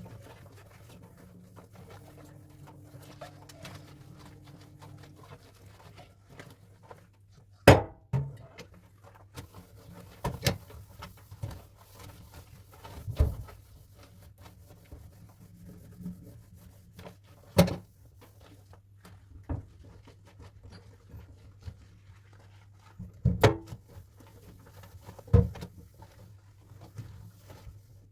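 Dishes and kitchenware set down and handled after washing: about half a dozen sharp knocks and clinks several seconds apart, with fainter taps between them, over a low steady hum.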